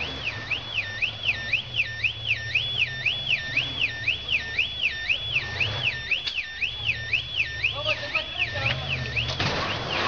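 Car alarm sounding: a siren tone sweeping up and down about two and a half times a second, without a break, over a low steady hum.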